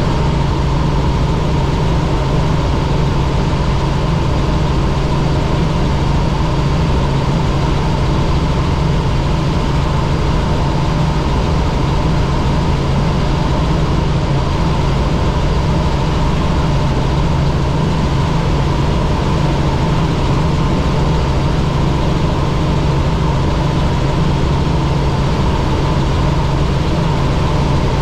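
Helicopter in flight: engine and rotor noise as a loud, steady drone, with a constant low hum and a higher held tone.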